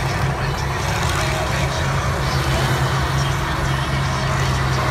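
Engines of several combine harvesters running together in a steady, even drone with a constant low hum, with no crashes.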